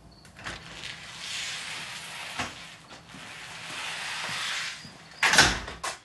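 Glass-paned entrance door pushed open and swinging shut, with a rushing noise as it moves, a few knocks, and a loud clunk near the end as it closes.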